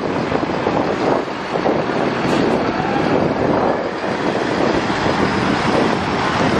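Intercity coach bus engine running steadily as the bus pulls out slowly and drives past and away.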